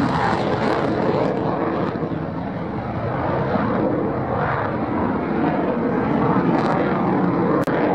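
A USAF Thunderbirds F-16 Fighting Falcon's jet engine roars steadily at takeoff power as the jet climbs steeply away. There is a brief sharp click near the end.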